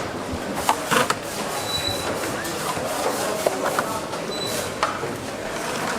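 Tablet assembly line ambience: a steady background din with scattered sharp clicks and clinks of parts being handled, and faint voices.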